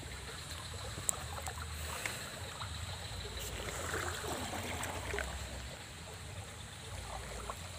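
Swollen, muddy floodwater running steadily in a river, with a single short tick about a second in.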